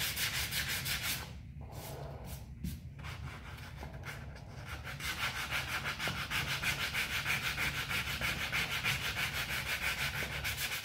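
Hand sanding a fiberglass repair with 80-grit paper on a sanding pad: quick rasping back-and-forth strokes, several a second. The strokes falter and go quieter for a few seconds about a second in, then pick up steadily again.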